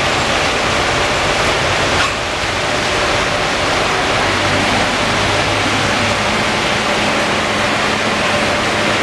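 Conveyor car wash tunnel in operation: spinning cloth wrap-around brushes scrubbing a car amid water spray, a loud steady rushing hiss. A short knock comes about two seconds in, and a faint low machine hum joins about halfway through.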